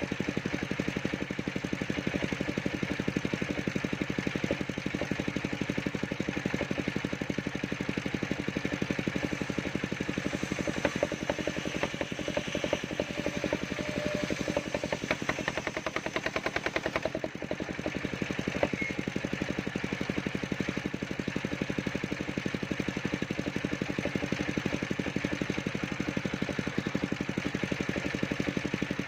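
Engine of a mobile circular sawmill running steadily with a fast, even pulse; for a few seconds around the middle the sound changes, with added clatter and a brief whine.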